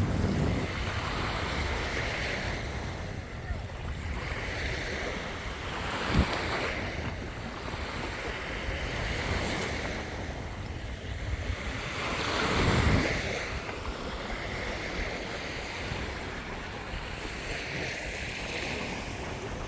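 Black Sea surf washing onto the shore in repeated swells, the biggest about two-thirds of the way through, with wind buffeting the microphone. A brief sharp knock about six seconds in.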